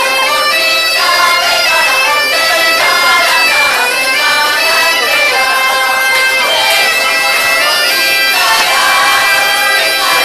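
Galician gaita (bagpipe) playing a lively folk tune over its steady, unbroken drone.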